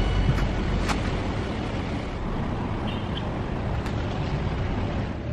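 Steady city street noise from passing traffic: an even low rumble with hiss and a few faint ticks.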